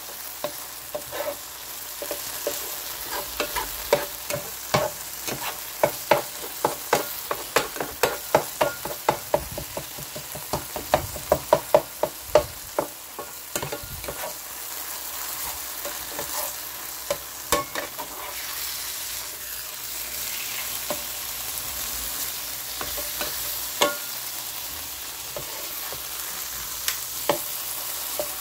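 Sliced steak and peppers frying in a nonstick skillet with a steady sizzle, while a spatula knocks and scrapes against the pan over and over through roughly the first half, then only now and then.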